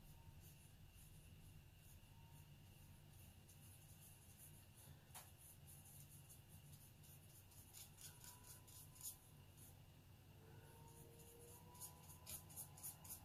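Faint, light scratching of a small round watercolour brush stroking across Arches 140 lb watercolour paper in short strokes, several in quick succession near the end, over a low steady room hum.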